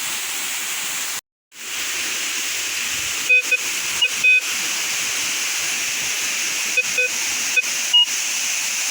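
Steady rush of a waterfall and stream, broken by a brief dropout to silence about a second in. From about three seconds on, a metal detector sounds short beeps as the coil sweeps over targets, mostly at one pitch, with a single higher beep near the end.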